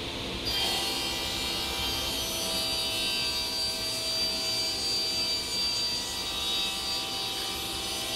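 Felder sliding table saw running steadily as it cuts a glued-up solid oak desktop panel to final size.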